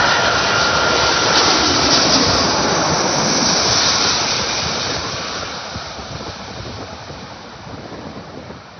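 Lufthansa Airbus A380's four Rolls-Royce Trent 900 turbofans passing low overhead on final approach: a loud jet rush with a steady whine in the first two seconds, loudest about three to four seconds in, then fading steadily as the jet moves away.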